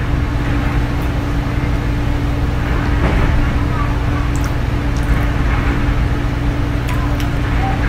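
Steady electrical hum and hiss throughout, with a few faint light clicks of a metal fork on a ceramic plate as spaghetti is twirled and eaten.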